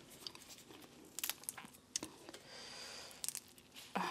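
Boiled crawfish being peeled by gloved hands: faint scattered cracks, crackles and tearing as the shell is broken apart.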